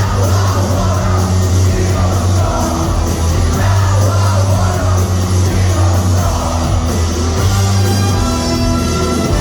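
Live rock band playing loud, with a heavy bass line, distorted guitars and some shouted singing, heard in a concert hall.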